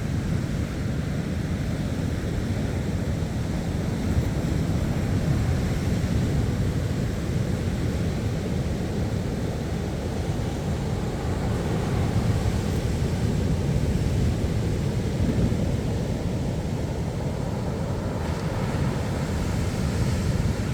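Atlantic surf at high tide breaking and washing up the beach and back, a steady low rush with slow swells, with wind rumbling on the microphone.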